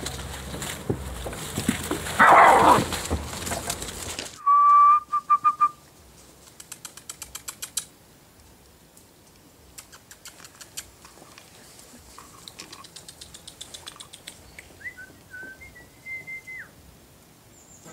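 High whistled notes: a short wavering whistle after about four seconds, followed by a run of faint ticks, and near the end a longer whistle that dips and then holds a higher note before breaking off. Earlier, a loud noise lasting about a second stands out over a noisy background.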